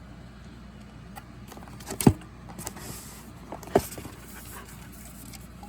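Two short knocks about a second and a half apart, over a steady low hum.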